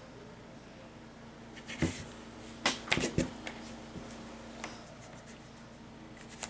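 A few light clicks and knocks of craft things being handled on a tabletop, bunched a couple of seconds in, over a steady low hum.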